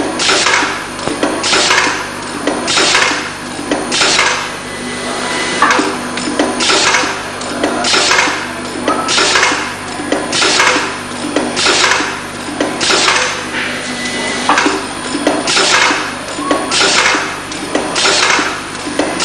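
Formatic food forming machine running, cycling a little less than once a second and a quarter; each stroke that forms and drops a patty onto the conveyor brings a short rush of swishing clatter, over a steady motor hum.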